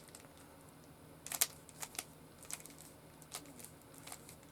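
Irregular plastic clicks and clacks of a Rubik's Cube being handled and turned, a quick cluster about a second and a half in, then scattered single clicks.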